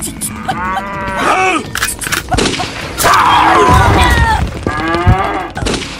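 Dubbed sound effects for a toy fight: a drawn-out wavering cry, then a loud crashing hit with a low rumble about three seconds in, and another falling cry shortly before the end.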